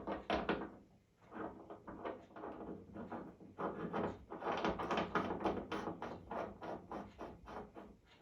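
Rapid metallic clicking and scraping, many short strokes in quick succession: the new tap valve assembly being fitted and screwed into the tap body with hand tools.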